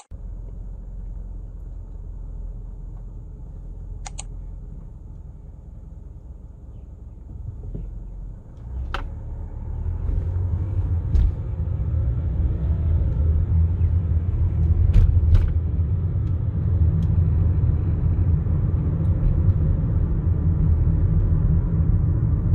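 Low, steady rumble of a car driving, heard from inside the moving car: tyre and engine noise that grows louder about nine to ten seconds in. A few short faint clicks come through it.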